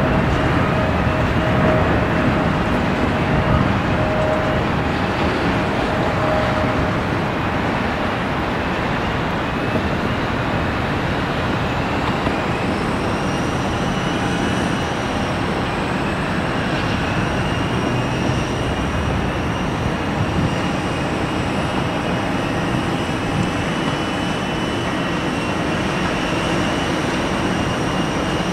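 Jet engine roar of a departing Boeing 777-300ER with GE90-115B turbofans, a broad steady rumble that eases slightly over the first several seconds as the airliner climbs away.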